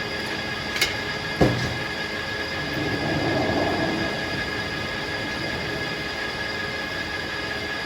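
Circular sawmill running steadily, with a sharp click just under a second in and a heavier thump about half a second later.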